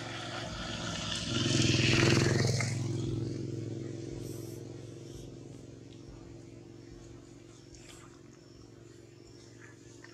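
A motor vehicle engine passing close by, swelling to its loudest about two seconds in, then fading away into the distance.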